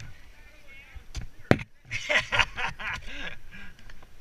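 Ice axe picks striking frozen waterfall ice, two sharp blows just after a second in, the second the loudest.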